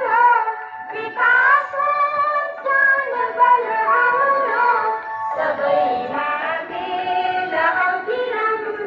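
Schoolchildren singing a morning prayer together in unison, a melody in long sung phrases with short breaths about a second in and about five seconds in.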